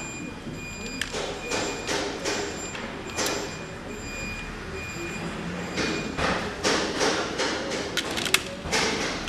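A motorcycle fender eliminator bracket and its wiring handled by hand: irregular clicks, taps and rustles as the part is turned over, coming thicker and faster in the second half.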